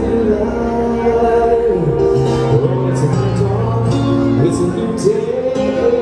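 A live band playing with a singer: sustained sung notes over held chords, with cymbal hits every second or so.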